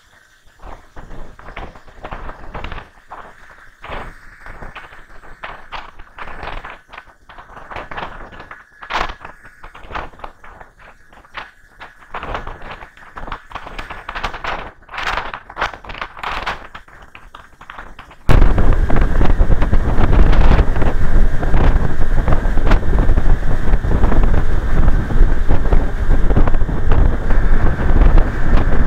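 Irregular quiet crackles and knocks on the microphone. About 18 seconds in, these give way suddenly to loud, steady wind rushing over the microphone of a moving vehicle, with a heavy low rumble.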